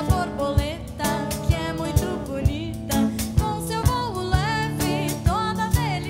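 Live band playing a song: a woman's voice singing a melody over drum kit and guitar, with a steady beat of about two a second.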